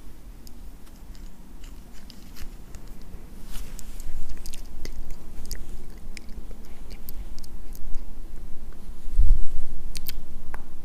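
Close-miked ASMR trigger sounds: scattered small clicks and crackles over a low rumble, with a soft low thump about nine seconds in.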